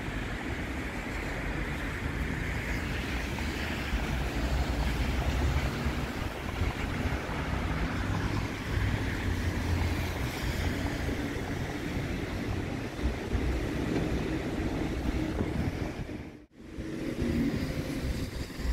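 Wind buffeting the microphone in uneven low gusts over steady background street traffic. The sound cuts out for an instant near the end.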